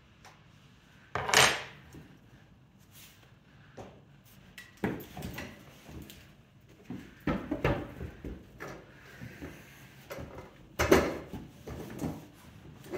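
Irregular knocks and clatter of tools and objects being handled and set down at a potter's wheel, with a loud clatter about a second in and another near the end.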